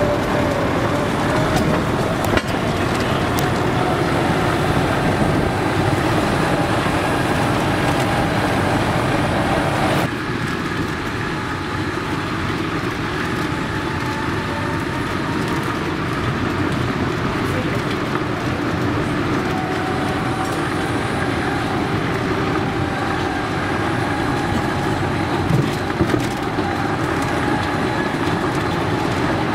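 Golf cart on the move: a steady rumble of tyres and running gear, with faint tones that waver in pitch over it. About ten seconds in the sound drops a little and changes character.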